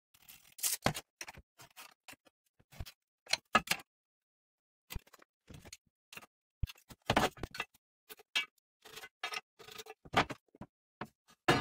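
A tape measure and a steel channel handled on a steel workbench: scattered clicks, taps and light scrapes, some with a short metallic ring, with a pause about four seconds in.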